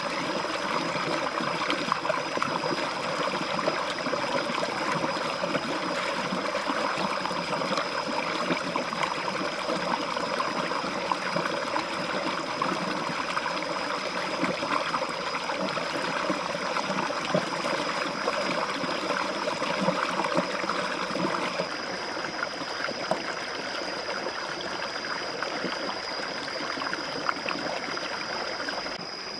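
Shallow stream rushing over rocks, with hands splashing and scrubbing a plucked duck carcass in the current. About twenty seconds in the splashing gives way to the smoother rush of the stream alone. A thin, steady high tone runs underneath throughout.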